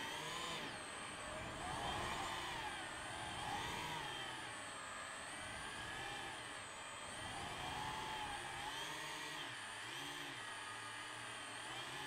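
DJI FPV drone's motors and propellers whining, the pitch rising and falling over and over as the throttle changes.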